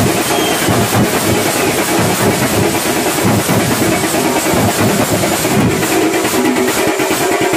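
A street drum troupe beating skin-headed drums with sticks in a fast, continuous rattle of strokes, with metal hand cymbals clashing along.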